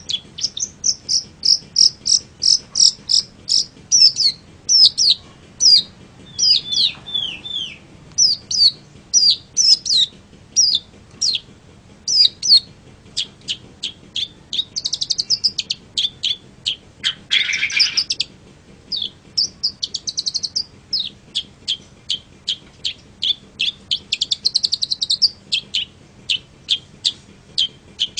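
Long-tailed shrike singing: a fast, varied run of short, sharp high chirps, broken several times by harsh, scratchy bursts.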